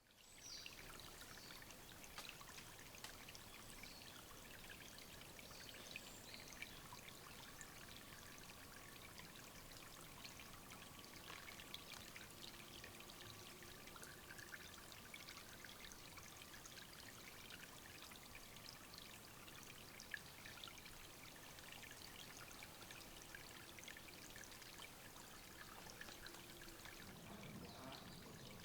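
Small stream of water trickling and dripping steadily into a forest bird-bathing pool, a faint continuous splashing with many tiny drips.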